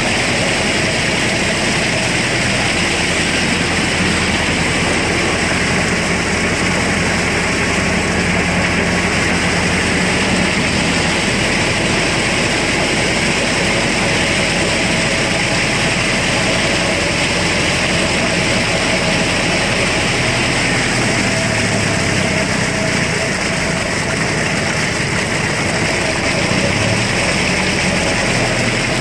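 Mahindra Arjun Novo 605 DI-i 4WD tractor's diesel engine running steadily under load, powering a rotavator through the PTO as it churns wet, puddled mud.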